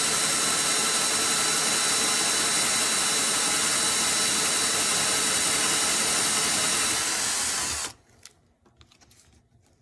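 Power drill spinning a hole saw through the airbox wall, running steadily, then stopping abruptly about eight seconds in. A few faint clicks follow.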